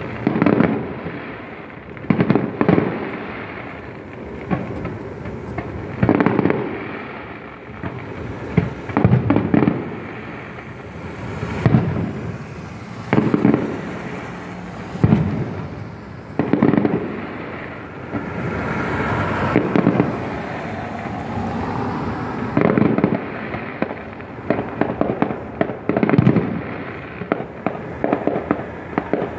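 Aerial fireworks shells bursting one after another, a bang every second or two, each trailing off in a rumbling echo. Near the end the bangs come in quicker runs of crackling pops.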